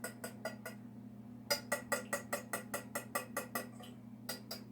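A utensil clinking rapidly against a bowl while mixing batter, about seven strikes a second, in runs broken by short pauses. A faint steady hum lies underneath.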